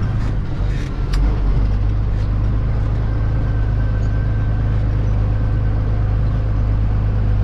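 Engine of a farm vehicle running at a steady speed, a constant low drone that firms up slightly about a second and a half in.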